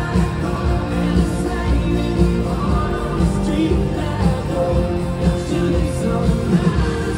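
Live country-rock band playing at full volume, with electric guitars, drums and keyboards under a sung vocal line, heard from the crowd in an arena.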